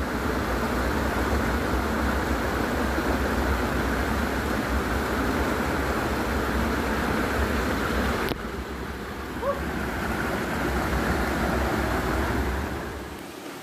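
Steady rushing noise with a low rumble of wind buffeting the microphone; the sound drops suddenly about eight seconds in, and the low rumble dies away near the end.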